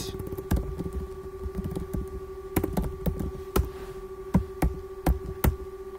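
Computer keyboard typing: irregular keystrokes with a few sharper clacks among them, over a steady electrical hum.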